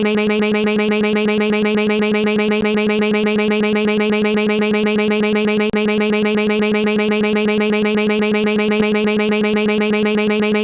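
Synthesized character-dialogue sound effect: a steady pitched tone chopped into a rapid, even train of short blips, like the babble that stands in for speech as a character's text appears. There is a brief break about halfway through.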